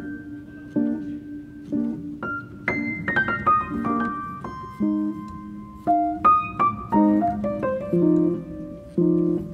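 Background piano music: a gentle tune of single notes and chords, with a quick falling run of notes about three seconds in.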